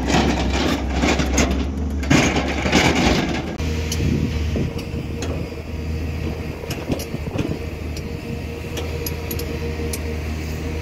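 Volvo EC210B crawler excavator's diesel engine running steadily under work as the loaded bucket is raised. Louder and rougher for the first few seconds, then a steadier running sound with a faint steady whine and scattered small clicks.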